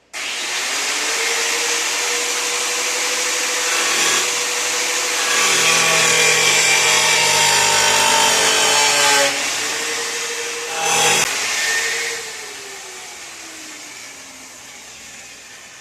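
Angle grinder switched on and cutting into a car hood with a cut-off wheel: a steady motor whine with a harsh grinding hiss that gets rougher while the wheel bites. The grinder eases off, gives one short burst, then is switched off and its whine falls in pitch as the wheel spins down.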